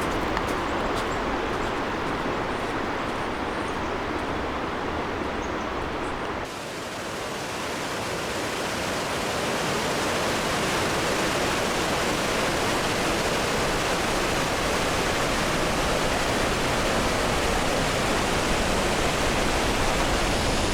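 Waterfall of spring meltwater pouring over rocks: a steady rushing noise. It changes abruptly about six seconds in, then slowly grows louder.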